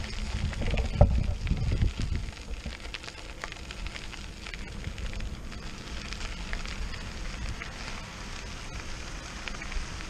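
Unicycle tyre rolling over a loose gravel track, a continuous crackling crunch of small stones, with wind rumbling on the microphone. It is louder in the first couple of seconds, then settles to a steady level.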